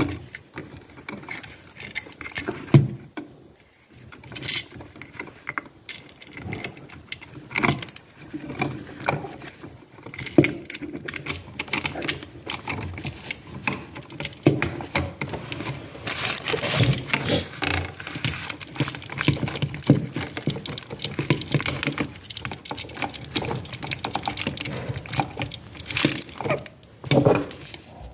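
Irregular clicking, rattling and rustling as gloved hands handle a GFCI receptacle and its wires at the wall box.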